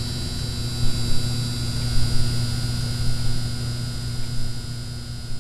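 Neon-sign buzz sound effect: a steady low electrical hum with a faint high whine above it, and a few brief crackles about one and two seconds in.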